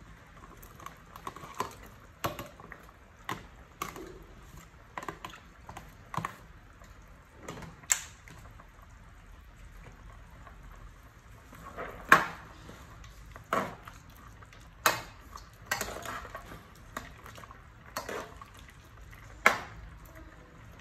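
Sliced bamboo shoots tipped from a plastic tub into a pot of simmering broth, then a metal ladle stirring and knocking against the steel pot: a string of short clicks, splashes and clinks, the sharpest knocks in the second half.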